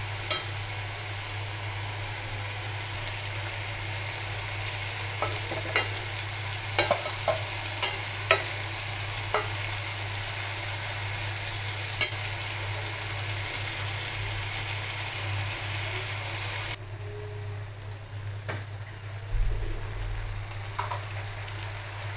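Shredded potatoes sizzling in hot oil in a pan as a metal spatula stirs them, with a few sharp clicks of the spatula against the pan in the first half. About 17 seconds in the sizzling suddenly turns quieter.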